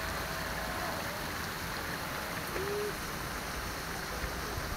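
Steady outdoor rushing background noise, even throughout, with one brief low call about two and a half seconds in.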